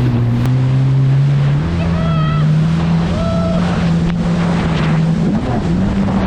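Jet ski's 1500 cc engine running under throttle, its pitch stepping up about a second and a half in and again near the end, with wind on the microphone and rushing water. Two short voice cries come around the middle.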